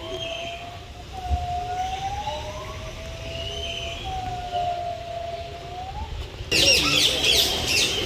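A distant siren wailing: long, slow tones that rise and fall, two overlapping. About six and a half seconds in it gives way abruptly to the busy chattering of many birds.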